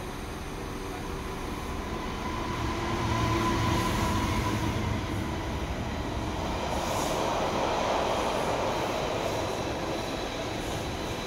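West Midlands Railway Class 196 diesel multiple unit arriving at a platform, its engine and wheel noise growing as it draws alongside. Loudest about four seconds in and again around eight seconds in, easing near the end.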